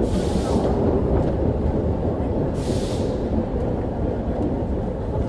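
Interior sound of a 1924/25-built Berlin U-Bahn class A-I motor car running: a steady, dense rumble with two short high hisses, one at the start and one about three seconds in.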